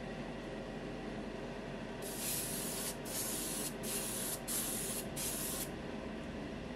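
Airbrush spraying 2K automotive clear coat over a model part in five short bursts of hiss, each about half a second, spread over roughly three and a half seconds. A steady low hum runs underneath.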